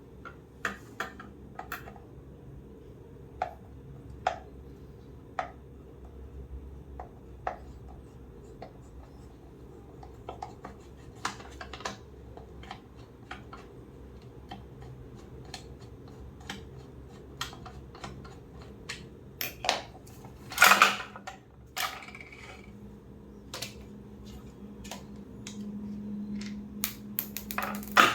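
Clicks, taps and clinks of small hard parts and tools being handled while a steam iron is taken apart, with a louder clatter about twenty seconds in. A low steady hum comes in over the last few seconds.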